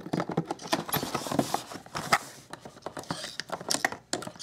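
Scissors cutting the ties that hold a plastic toy figure in its cardboard box, with irregular clicks and scrapes of the plastic and packaging.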